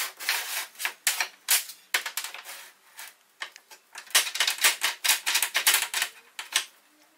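Homemade pipe clamp made from steel pipe clattering as it is handled: its steel jaw clicks and clanks along the pipe and knocks on the steel workbench while it is set around wooden blocks. Quick runs of sharp metal clicks and knocks, with a lull in the middle, stopping shortly before the end.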